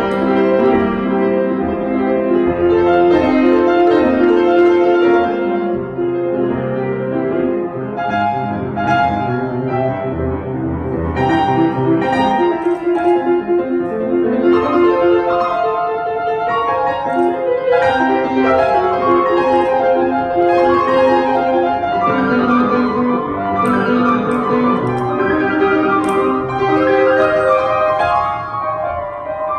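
Piano playing a piece, with continuous runs of notes and no pause.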